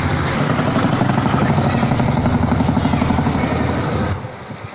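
A vehicle engine running close by: a loud, low pulsing drone that cuts off suddenly about four seconds in.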